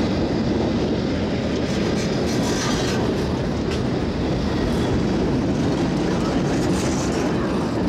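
Freight train cars (boxcars and double-stack container cars) rolling past at close range: a steady rumble of steel wheels on the rails, with a few faint clicks.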